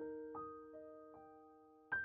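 Soft background piano music: single notes struck a few times, each ringing on and fading.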